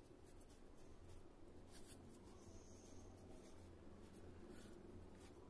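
Near silence, with the faint scratchy rustle of yarn and a crochet hook being worked by hand over a faint low hum.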